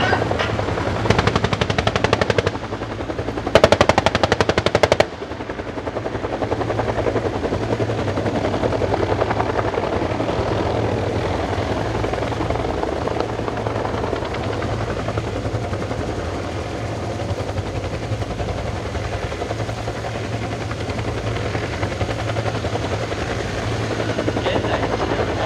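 Two bursts of rapid automatic gunfire, each about a second and a half long and about a second apart, during live-fire training. Then the steady drone of helicopters carries on to the end.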